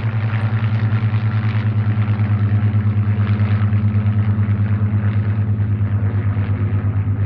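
Piston-engined propeller aircraft flying overhead: a steady low engine drone with a fast, even pulsing throb.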